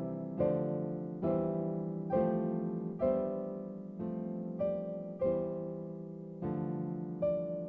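Background music: slow piano chords, struck about once a second and left to fade.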